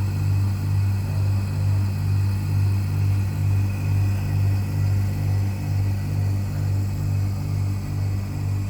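1979 National multi-split floor-standing air conditioner running: a steady low hum with a throb that pulses about twice a second.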